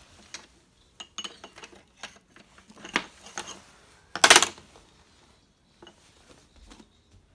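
Cutlery and crockery clinking on a tray: a scatter of small sharp clicks of a spoon and fork against a plate, then one louder clatter about four seconds in.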